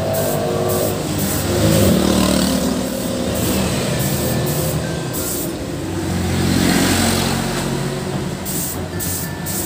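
Road traffic passing close by, with the engine rumble of heavy vehicles swelling past about two seconds in and again around seven seconds. Over it, a gravity-feed spray gun hisses in short bursts as it is triggered.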